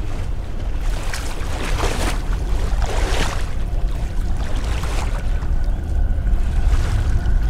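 Lake water sloshing as a figure wades through it, with swells of splashing about a second in and again around three seconds, over a deep steady rumble.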